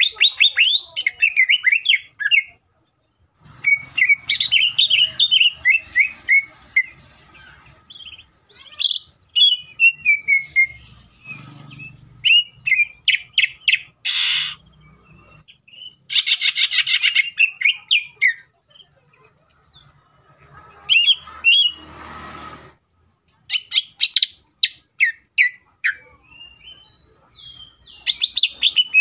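Caged male green leafbird (cucak ijo) singing hard in repeated bursts: rapid chattering trills and quick falling whistled phrases, with short pauses between them and a couple of harsh hissing notes.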